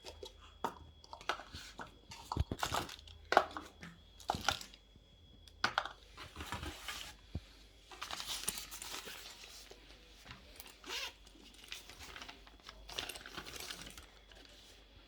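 Packaging being handled and opened: a series of sharp clicks and knocks for the first few seconds, then longer stretches of crinkling, tearing and rustling of wrapping.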